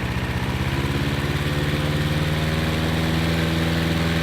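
Hayter Harrier lawn mower's petrol engine running smoothly at steady revs, its earlier hunting cured by clearing sediment from the carburettor bowl nut's fuel holes.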